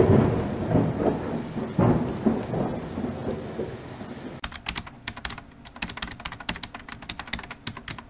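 An uneven low rumbling noise, then from about four and a half seconds in a fast run of sharp clicks like typing on a computer keyboard.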